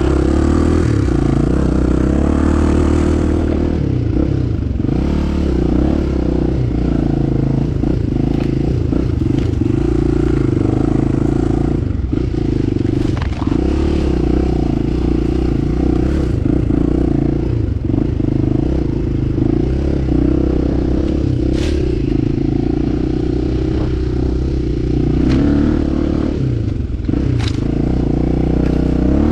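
Enduro motorcycle engine running steadily as the bike is ridden off-road, its pitch rising and falling a little with the throttle, with a few short clicks and scrapes over it.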